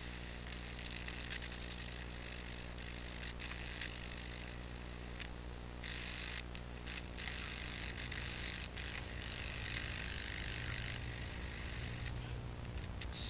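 Steady electrical buzz, like mains hum, under bursts of static hiss that cut in and out abruptly, as from a glitching old video signal.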